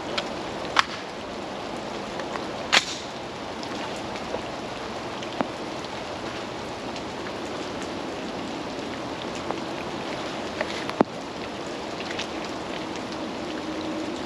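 Steady pouring rain falling, with a few sharp ticks and clicks, the loudest about three seconds in.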